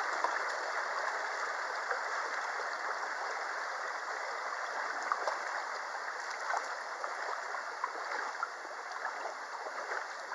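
Mountain stream running steadily: a continuous rush of flowing water.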